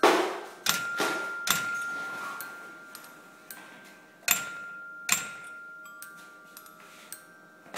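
Irregular sharp strikes on something that rings, each leaving a clear tone that fades slowly, like chimes or small metal bars: three close together at the start and two more about four and five seconds in, with faint ticks between them.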